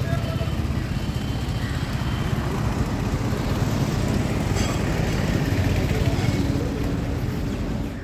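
Motorcycle running at road speed, its engine noise mixed with a steady rush of wind over the microphone.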